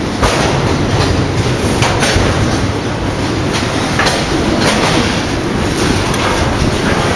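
Container wagons of an intermodal freight train rolling past: a steady loud rumble of steel wheels on rail, with irregular clacks as the wheels cross rail joints.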